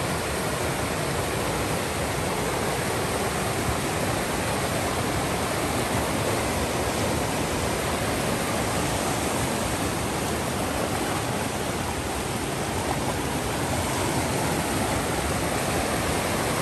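A stream rushing steadily, an even wash of flowing water.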